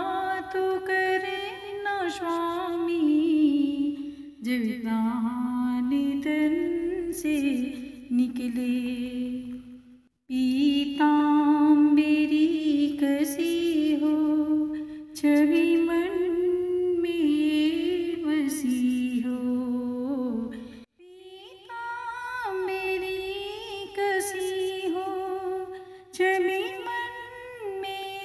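Background music: a slow melody hummed by a single voice, in long gliding phrases that break off briefly about 10 and 21 seconds in.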